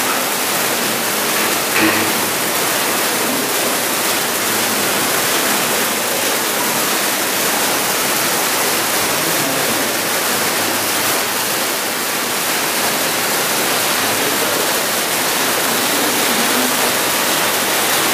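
A row of silver cold-spark stage fountains spraying sparks, giving a steady, even hiss.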